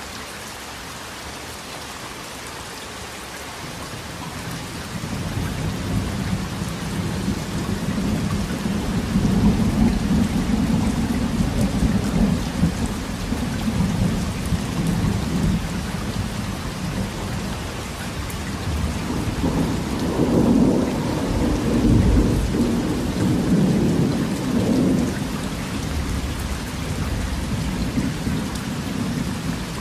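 Steady rain with a long roll of thunder that builds a few seconds in, swells twice, and eases off near the end.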